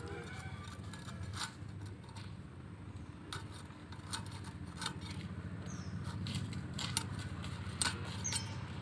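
A knife cutting a large tilapia: scattered scrapes and sharp knocks at irregular intervals.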